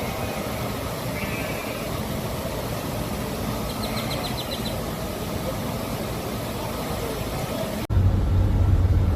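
Steady rushing outdoor noise with a few faint chirps, then an abrupt cut about eight seconds in to a louder, steady low hum like an idling engine.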